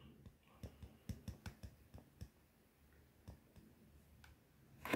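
Faint clicks of a stylus tip tapping on a tablet's glass screen during handwriting. A quick run of taps comes in the first two seconds, then a few scattered ones, with a sharper click near the end.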